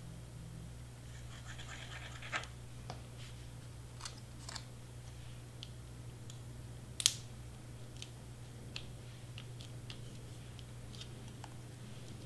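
Quiet handling of small cardstock pieces being pressed into place: faint scrapes and rustles with scattered small clicks, and one sharper click about seven seconds in, over a low steady hum.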